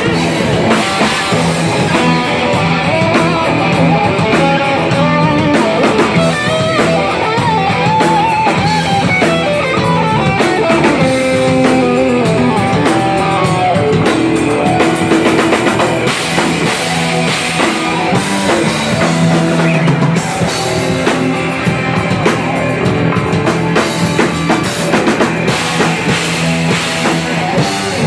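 Live rock band playing loud through amplifiers, with electric guitars, bass guitar and drum kit. A lead line bends and wavers in pitch near the middle.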